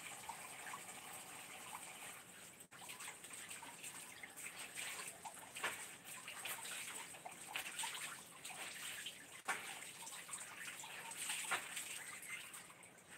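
Faint water splashing, trickling and dripping, with irregular small splashes, as laundry is handled in water.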